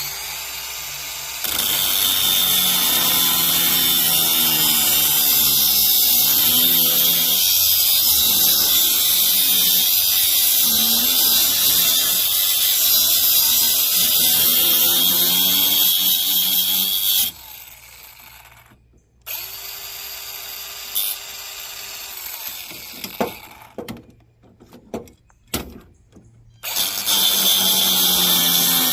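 Reloive 16V cordless 3-inch mini angle grinder cutting through copper tubing with its cut-off disc: a loud, steady high-pitched whine and hiss for about fifteen seconds that then stops. After a quieter stretch with a few clicks, the grinder runs again near the end.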